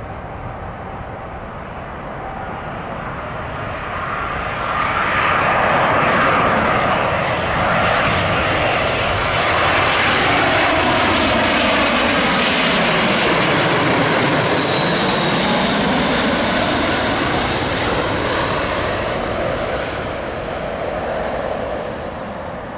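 Airbus A321-231 airliner with IAE V2500 turbofans on final approach, flying low overhead. The engine and airflow noise grows loud from about four seconds in and peaks as it passes over about halfway through, with its whine dropping in pitch. It then fades as the jet moves away toward the runway.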